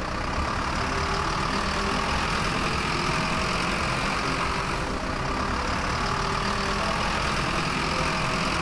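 Steady engine running, a motor-vehicle sound effect laid on for a toy truck driving along.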